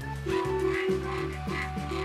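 Electronic music with short notes repeating in a quick, even rhythm over a low bass line.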